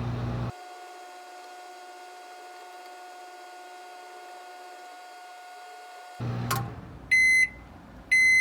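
Tatung microwave oven running with a steady electrical hum; about half a second in the deep part of the hum drops away, leaving a fainter steady tone. Near the end it clicks off and gives two loud high beeps about a second apart, signalling that the heating cycle is done.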